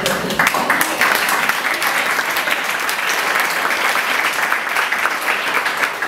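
Audience applauding: many people clapping steadily.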